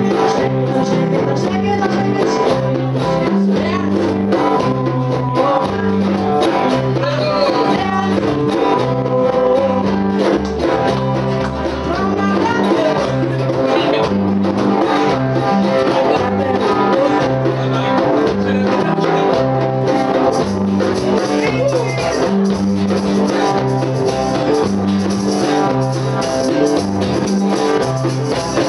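Live band music: an electric bass guitar playing a repeating bass line under electric and acoustic guitars, with a singer's voice over them.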